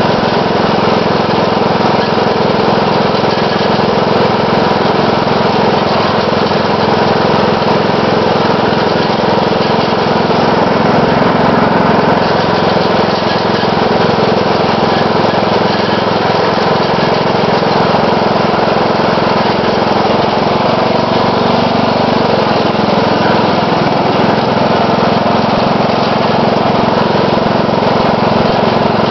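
Riding mower's 12.5 hp Briggs & Stratton engine running steadily while the mower drives along a road.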